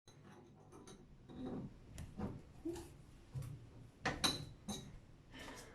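Scattered light clicks and knocks from hard plastic toilet-tank parts being handled and snapped into place while a repair kit is fitted, a few sharper clicks about two and four seconds in.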